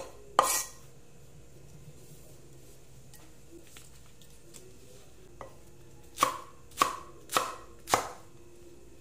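Cleaver chopping onto a wooden chopping board: two chops at the start, a pause, then four chops about half a second apart near the end.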